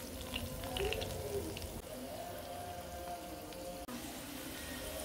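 Parboiled potato wedges shallow-frying in melted margarine in a nonstick pan: a soft, steady sizzle with small crackles.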